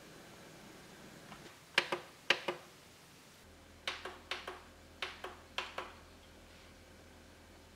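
Plastic buttons on a portable CD/cassette radio being pressed, a dozen or so sharp clicks, mostly in quick press-and-release pairs.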